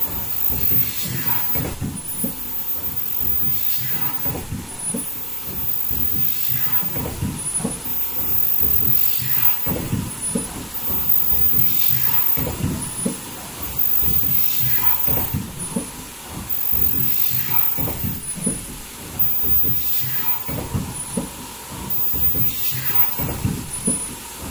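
Foldable KN95 mask production line running: a high-pitched whine, typical of its ultrasonic welders, pulses on about once a second over steady machine clatter, with a regular knock every two to three seconds as it cycles.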